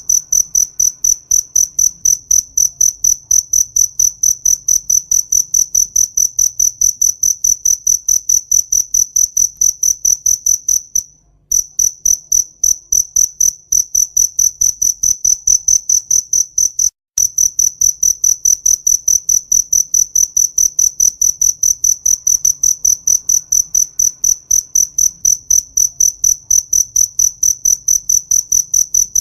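A cricket chirping in a steady, even rhythm, about three or four high-pitched chirps a second. The chirping breaks off briefly twice, about eleven and seventeen seconds in.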